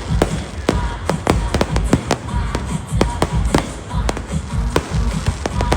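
Fireworks going off in a rapid, irregular series of bangs and crackles, with background music.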